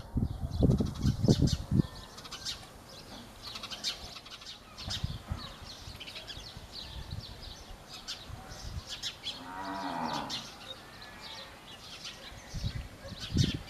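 House sparrows chirping over and over in short, high chirps. Low thumping noise fills the first two seconds. About ten seconds in comes a low, drawn-out animal call lasting about a second.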